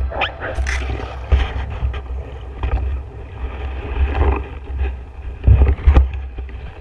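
Water sloshing and bubbling around a speargun-mounted camera at the river surface as it is pushed through submerged reeds, with low rumbling and scattered knocks, the loudest bumps about five and a half seconds in.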